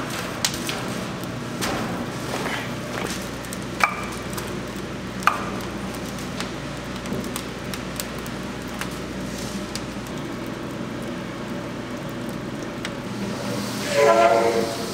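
Steel offset smoker being worked: three sharp knocks, the later two with a short metallic ring, as split logs are loaded into the firebox, over a steady low hum. About a second before the end, a loud metallic squeal as the heavy cooking-chamber lid swings open.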